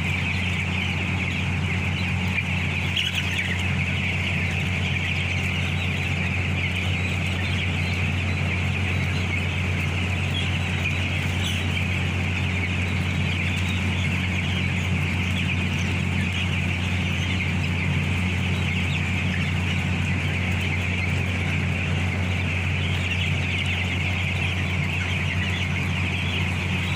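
A large flock of near-grown broiler chickens in a poultry house clucking and chirping continuously as one dense chatter. Under it runs a steady low hum.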